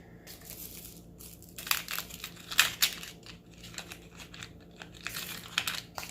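Packaging being handled, crinkling and rustling in irregular bursts, with a few sharper crackles.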